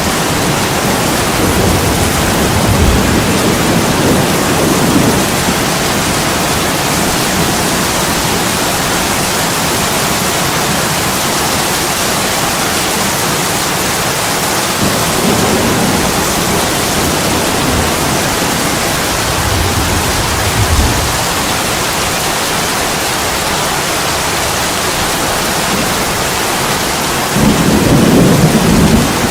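Heavy rain pouring steadily onto an attic window pane. Low rumbles swell up several times, the loudest near the end.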